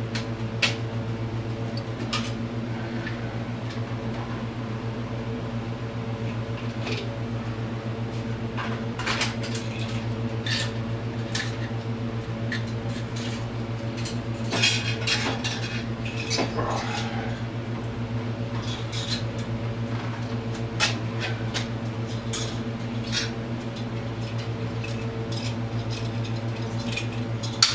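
Scattered metal clinks and knocks as the cylinder head is worked loose and pulled off a Polaris Sportsman 500 H.O. engine, busiest in the middle of the stretch, over a steady mechanical fan hum.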